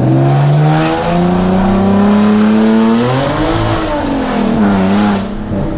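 Straight-piped 2011 Nissan 370Z Nismo's V6 exhaust, loud, climbing in revs under light throttle. About three seconds in, the pitch drops sharply as it shifts, rises briefly again, then falls as it eases off near the end.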